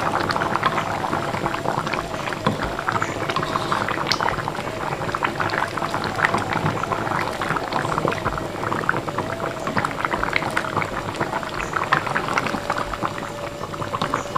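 Coconut-milk curry of fish and bitter gourd (gulai pario) bubbling steadily at the boil in its pot: a dense, even run of small pops and bubbles.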